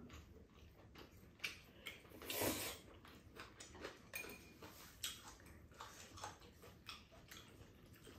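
Quiet eating sounds: chopsticks and spoons clicking against bowls and the pan, with noodles being slurped, the loudest slurp a short noisy one about two and a half seconds in.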